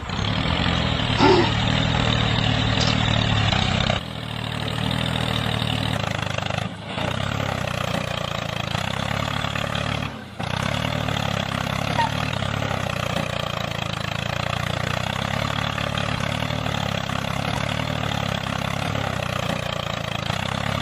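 Tractor engine running steadily, with a few brief dips in level.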